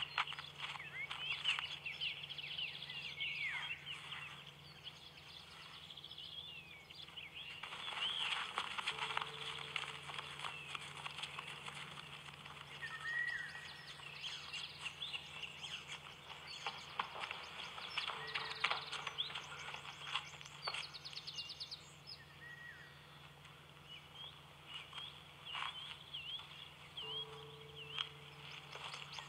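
Small birds chirping and calling, many short high chirps and quick sweeping notes. Under them a low hum sets in again about every nine seconds.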